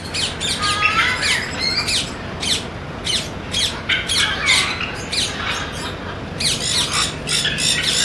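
Parrots squawking in a cage: a rapid run of short, harsh, high calls, several a second, with a brief lull about two seconds in.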